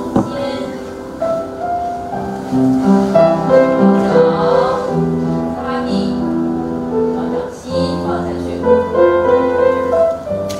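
Piano accompaniment playing a flowing melody of held, overlapping notes, with a single click right at the start.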